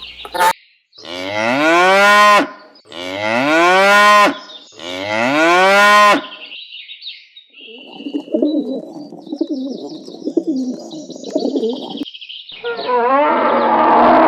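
A cow mooing three times in a row, each moo about one and a half seconds long and rising in pitch. After the moos come faint high chirping and a rough low sound.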